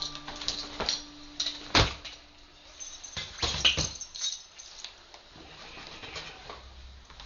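A handful of short knocks and clicks, like objects being handled, with the sharpest knock about two seconds in and a quick cluster a little later.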